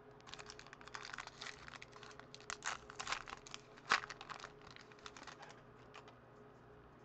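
Foil wrapper of a 2014 Bowman baseball card pack crinkling and tearing as it is handled and opened by hand, a dense run of crackles lasting about five and a half seconds with one sharp snap about four seconds in.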